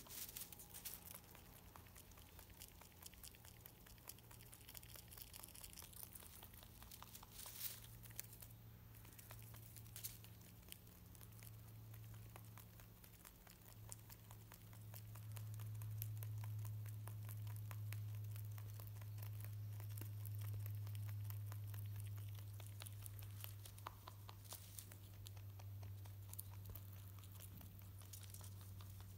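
Rabbit chewing oat hay: a quick run of faint, crisp crunching clicks as the stalks are bitten and ground. A steady low hum runs underneath, louder through the middle.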